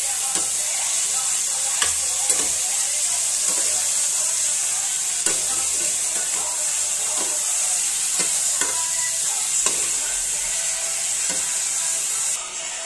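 Mutton pieces sizzling as they fry in a pan, with a steady hiss, while a spatula stirs them, scraping and knocking against the pan now and then. The sizzling drops away suddenly near the end.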